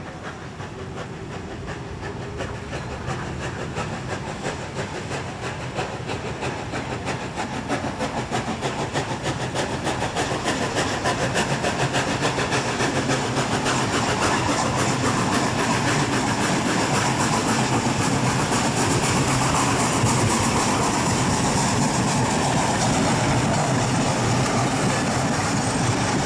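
NSW C36-class 4-6-0 steam locomotive 3642 working a train, its fast steady exhaust beats growing louder as it approaches and passes. Near the end, heritage carriages roll by with their wheels clicking over the rail joints.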